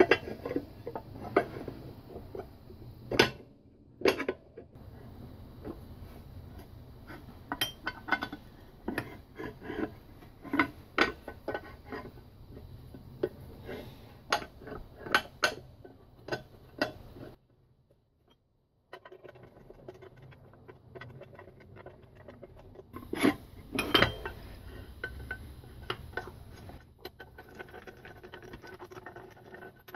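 Metal parts of a Speed-Vise being handled and fitted together on a workbench: irregular metallic clinks and knocks of metal on metal, with a short silent break a little over halfway through.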